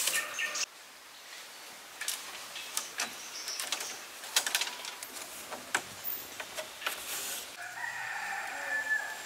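A rooster crows once near the end, a single drawn-out call of about a second and a half. Before it come scattered sharp clicks and taps.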